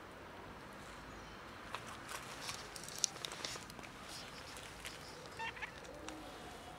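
Light rustling and ticking of steps on dry leaves and gravel, with a short cat meow about five and a half seconds in.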